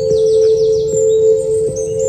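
Emergency alert alarm tone: a steady mid-pitched tone held throughout, with rapid runs of short, falling, high chirps over it.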